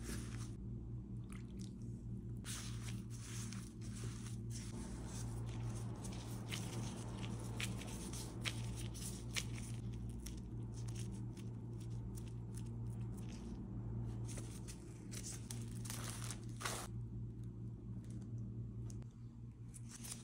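Crumbly ma'amoul dough being rubbed and kneaded by a hand in a plastic glove: a run of crunching, squishing rustles that come thickest in the first half and briefly again near the end. A steady low hum runs underneath.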